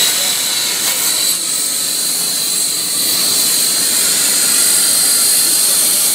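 Plasma cutting torch on a Kinetic K5000xmc CNC plasma machine cutting through metal plate: a loud, steady hiss with a constant high-pitched whine from the arc.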